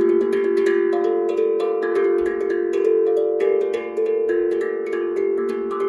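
Steel tongue drum struck with the fingertips in an improvised run of notes, several strikes a second, each note ringing on and overlapping the next.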